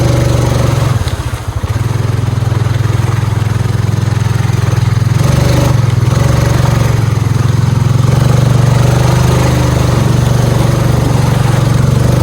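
Honda Rubicon 520 ATV's single-cylinder engine running under load in second gear, pulling through thick mud. The engine note dips briefly about a second in, then holds steady and loud.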